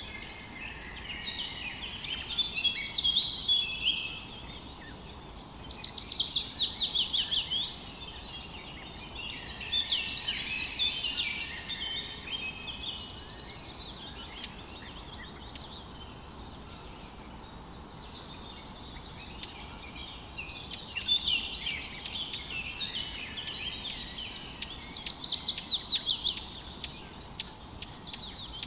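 Songbirds singing in bursts of rapid chirping and trilling phrases, each a few seconds long, with a pause of several seconds in the middle, over a faint steady outdoor hiss.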